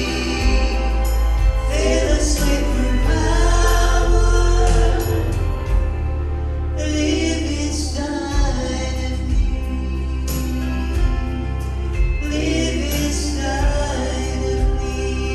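Gospel music: a vocal group singing in phrases over instrumental accompaniment with a heavy bass.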